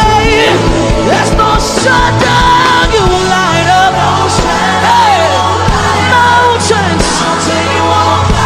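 Live worship band playing full and loud, with a lead singer's wordless, melismatic vocal runs over steady bass and chords.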